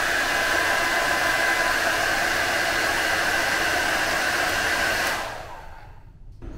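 Panasonic EH-NE64 ionic hair dryer running steadily, a rush of air with a steady whine in it. It stops about five seconds in, fading out over a second.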